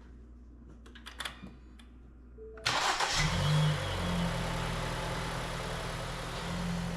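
A few clicks, then the Ford Escape's 1.6-litre four-cylinder engine is cranked briefly, catches about two and a half seconds in, and runs at a steady idle. This is the first start after a fresh oil change.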